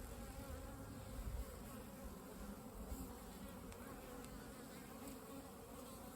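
Russian honey bees buzzing around an open nucleus hive during an inspection: a faint, steady hum.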